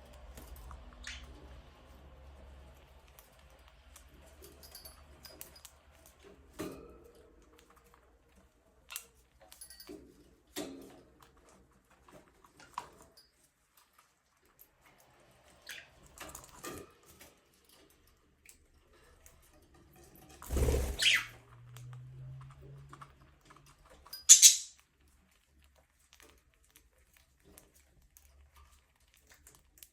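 Pet budgerigars giving scattered short, sharp chirps at irregular intervals, the loudest a high call a few seconds before the end. About two-thirds of the way through there is a heavier thump.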